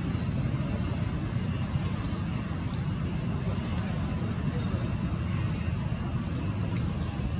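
Steady forest ambience: a continuous high insect drone with a steady low rumble underneath.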